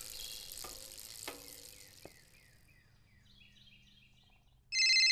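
Outdoor ambience with a soft hiss, a few light clicks and birds chirping, growing quieter about three seconds in. Near the end a loud, steady electronic tone starts abruptly.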